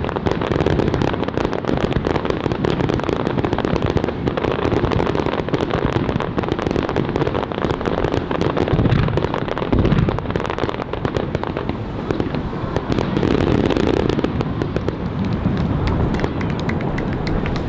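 Fireworks going off in a dense barrage: continuous crackling with repeated booms, one of the heaviest about ten seconds in.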